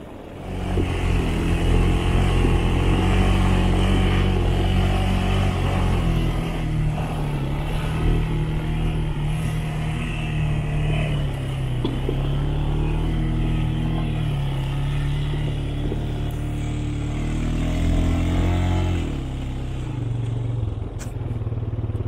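Four-wheeler (ATV) engine running as it is ridden, its pitch rising and falling with the throttle; it picks up about half a second in and eases off near the end.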